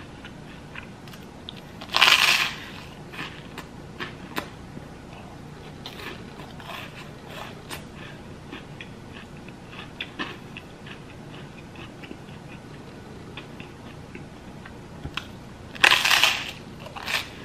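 Crunchy toast being bitten, with a loud crunch about two seconds in and another near the end, and quieter crackly chewing of the toast in between.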